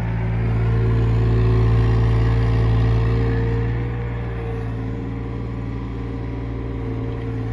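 Hyundai 35Z-9 mini excavator's diesel engine running steadily as the machine digs. It grows louder over the first few seconds, then eases back about four seconds in.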